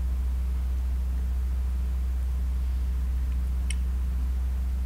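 A steady low hum with light hiss, and a single short click about three and a half seconds in.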